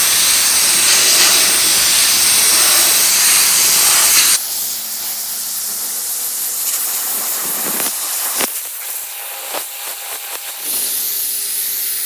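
Sandblast gun blasting abrasive against a bare steel mower deck: a loud, steady hiss that drops suddenly about four seconds in to a quieter, rougher hiss with a few sharp clicks.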